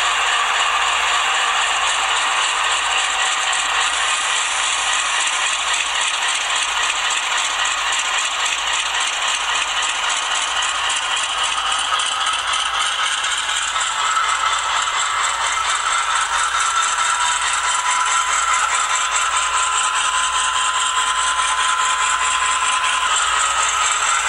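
HO-scale GE Dash 9-44CW model locomotive running, its ESU LokSound decoder playing GE diesel engine sound through a small onboard speaker, with a rattly, tinny quality. A steady whine comes in about halfway through.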